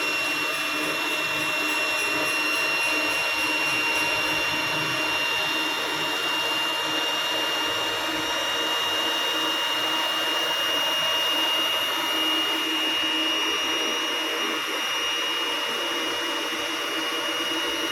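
Singer M3505 electric sewing machine's motor running steadily under the foot pedal, driving the bobbin winder as thread winds onto the bobbin: an even whir with a constant high whine.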